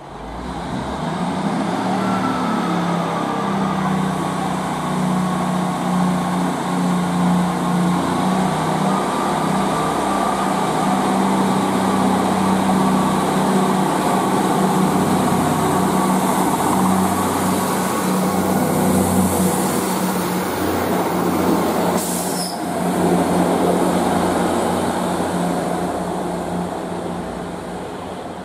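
Class 158 diesel multiple unit's underfloor diesel engines running with a steady low hum, with a single sharp click about two-thirds of the way through.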